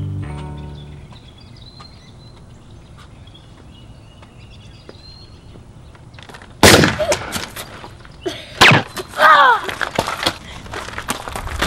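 Toy foam-dart blaster (Nerf) fire outdoors: a sudden loud sharp shot about two-thirds of the way through, followed by a couple more sharp cracks and a child's high, sliding-pitch cry or shout. Before the shots, faint birdsong over quiet outdoor air.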